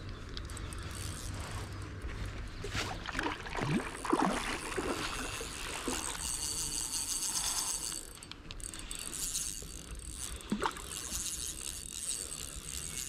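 A hooked fish splashing and thrashing in shallow water close to the landing net, with the whir and clicking of a light spinning reel being wound in.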